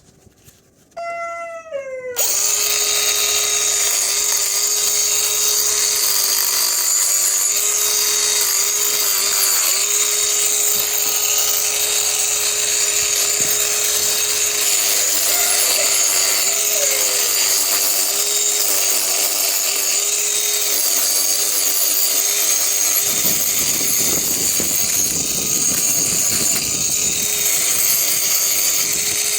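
Cordless mini angle grinder spinning up about a second in, then running steadily with a high whine as its abrasive disc grinds down an overgrown miniature horse hoof. From about 23 s to 27 s a rougher, deeper grinding noise joins in.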